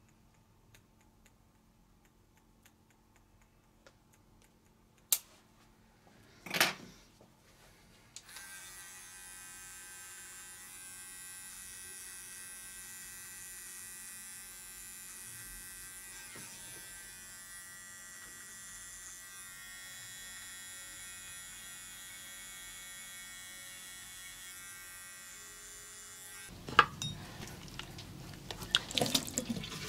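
Barber's electric clippers switching on about eight seconds in and running with a steady hum for about eighteen seconds. A sharp knock comes just before they start, and louder irregular handling noises follow near the end once they stop.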